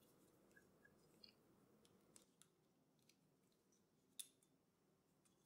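Near silence broken by a few faint small clicks, the loudest about four seconds in: a screwdriver prising the plastic fuse carrier out of a three-pin mains plug adapter.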